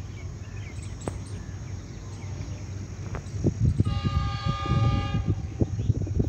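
Approaching Pakistan Railways GEU-40 diesel-electric locomotive hauling an express train, its low rumble growing louder. About four seconds in, it sounds a multi-tone horn blast lasting about two seconds.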